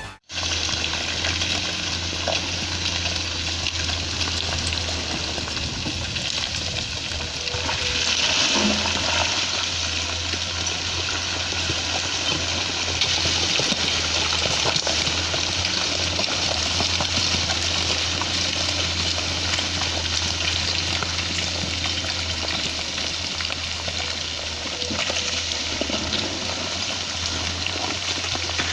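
Excavator's diesel engine running with a steady low hum, under a constant rushing noise that swells a little about eight seconds in.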